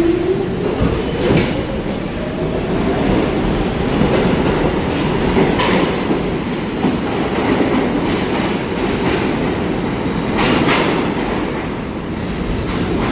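New York City subway train running through the station: a whine rising in pitch near the start, then a steady rumble of wheels on rail with a few sharp clacks over rail joints and some wheel squeal.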